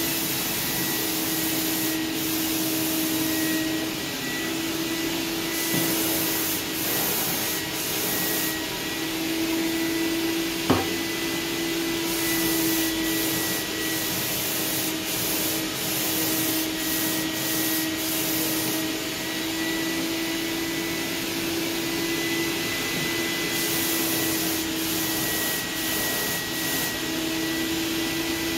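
HVLP paint-spraying setup: the air-supply motor drones steadily with a high whine while the spray gun hisses in several long passes as the trigger is held and released. One sharp click about eleven seconds in.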